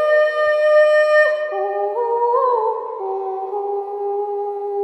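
Kulning, the Swedish herding call: a woman's high, clear voice holding long notes, sliding up in small steps, then dropping lower about a second and a half in and settling on a held tone. A steady lower tone sounds underneath in the first part.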